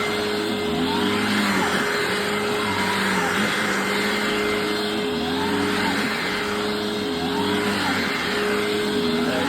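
Hoover WindTunnel Self-Propelled upright vacuum cleaner running over shredded paper on the floor. It gives a steady motor hum under a loud rushing, with a pitch that swells up and down every second or two as it is worked back and forth in repeated passes.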